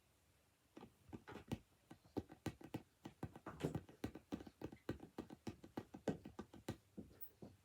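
A quick, irregular run of light knocks and taps, starting about a second in.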